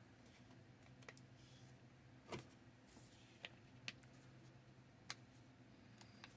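Near silence with about five faint, sharp clicks and taps of small wooden model-kit pieces being handled and pressed into place, over a low steady hum.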